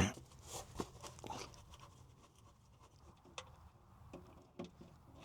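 Faint, scattered clicks and small knocks of a hand turning out an oil-pan drain plug, with quiet between them.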